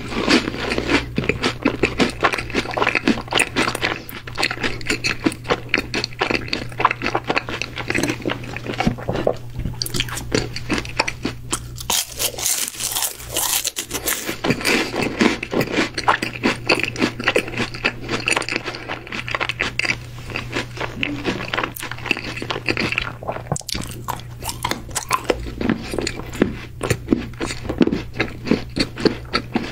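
Close-miked chewing of a crunchy chocolate-coated stick snack: dense, irregular crunching and wet mouth clicks, with a brief hissing burst about twelve seconds in.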